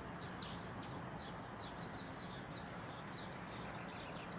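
Birds chirping in a quick, uneven series of short, high calls that sweep downward in pitch, over a faint steady hiss of outdoor background noise.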